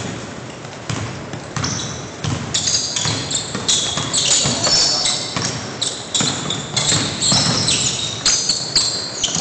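A basketball bouncing on a hardwood gym floor as it is dribbled, with sneakers squeaking sharply on the boards. The squeaks come thick and fast from about two seconds in.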